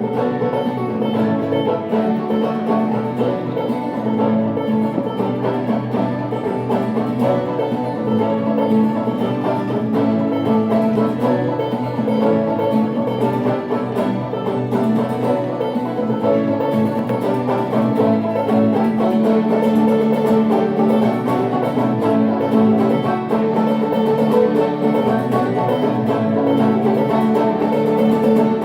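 Banjo and mandolin playing an instrumental tune together live, with steady, continuous picking.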